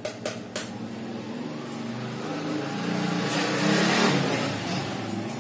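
Three light taps of a metal spoon cracking an eggshell at the start, then a motor vehicle passing by, swelling to its loudest about four seconds in and fading.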